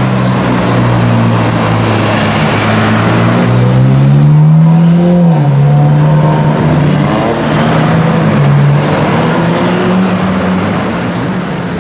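Ferrari 458 Italia's 4.5-litre V8 through an Armytrix aftermarket exhaust, driving off at low revs. A few seconds in, the revs climb under acceleration, then fall back sharply, and the engine runs on steadily, fading near the end as the car moves away.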